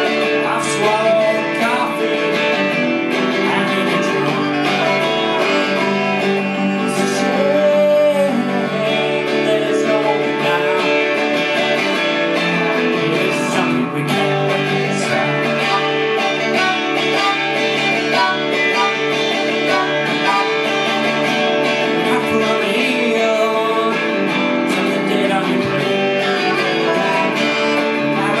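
Electric guitar strummed and violin bowed together, playing a song.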